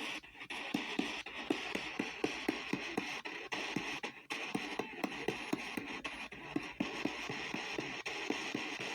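P-SB7T spirit box sweeping the AM band at 250 ms through an external speaker: a steady radio hiss broken by short blips and clicks about four times a second as it jumps from station to station.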